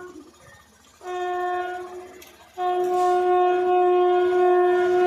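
Air horn of a WAG-9 electric freight locomotive sounding as it approaches: a blast about a second long about a second in, then a long, loud held blast from about halfway that runs on past the end.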